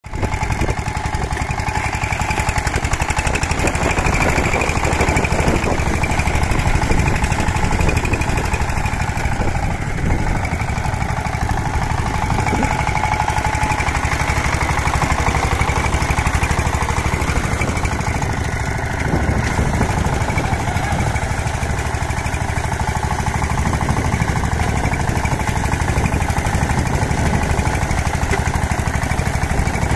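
Single-cylinder diesel engine of a two-wheel power tiller running steadily with a fast, even chugging beat. It labours as the tiller churns through deep mud.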